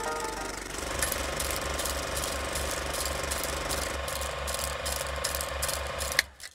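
Film projector running: a steady mechanical clatter about four times a second over a whirring hum, starting about a second in and stopping with a click near the end.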